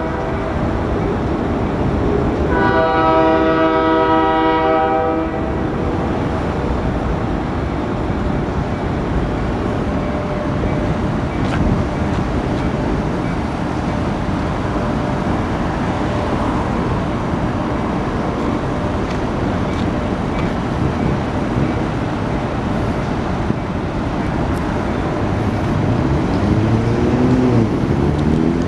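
Union Pacific freight train rumbling past steadily, with one blast of the locomotive's multi-chime air horn lasting about three seconds a few seconds in. Near the end a road vehicle's engine note rises as it accelerates.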